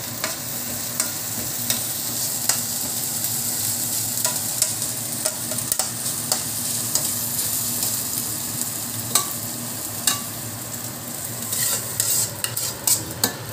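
Chopped garlic, onion and ginger sizzling in oil in a pan while a spatula stirs and scrapes them, with occasional sharp clicks of the spatula against the pan. Near the end a quick run of scrapes and knocks as the pan is scraped out into the pot.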